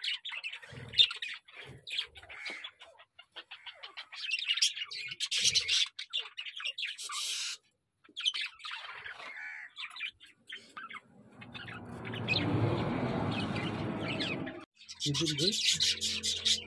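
A flock of budgerigars chirping and chattering rapidly in high, quick notes. The chirping is broken partway through by a few seconds of dull rushing noise, then resumes over a low steady hum.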